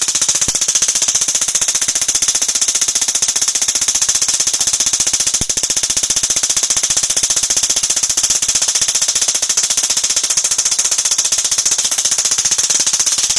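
High-voltage spark gap fed by a neon sign transformer, firing continuously as a loud, steady, very rapid crackling buzz.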